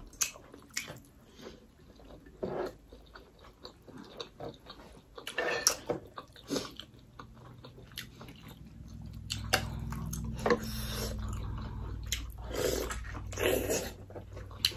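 Close-up chewing and biting of steamed mutton momo dumplings, with wet mouth sounds and scattered short clicks. A low steady hum comes in about eight seconds in.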